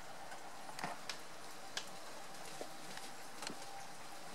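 Rain: a steady soft hiss with separate drops tapping sharply on a hard surface at irregular moments, roughly one a second.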